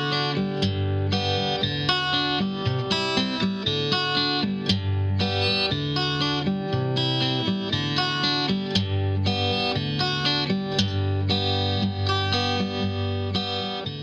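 Instrumental end-credits music led by guitar, with a steady rhythm and a bass line, starting to fade out near the end.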